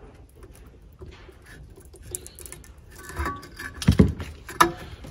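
Long-nose pliers clicking and scraping on a worn velcro pad as it is gripped and pulled away from a floor-sanding edger's metal plate, with faint scratching at first and a few sharper knocks and clicks about three to four and a half seconds in.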